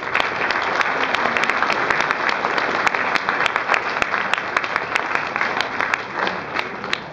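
Audience applauding, welcoming the performers back to the stage: dense clapping that starts at once and dies away near the end.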